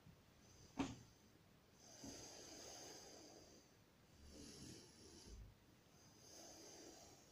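A person's breathing close to the microphone, three slow, faint breaths, with one sharp click about a second in.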